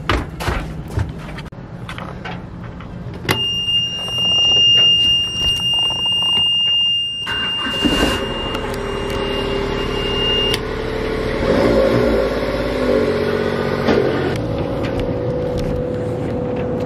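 A boat engine's warning buzzer sounds steadily as the ignition comes on; about eight seconds in, the starter cranks and the engine catches and keeps running, and the buzzer stops a couple of seconds later. The first few seconds hold scattered knocks.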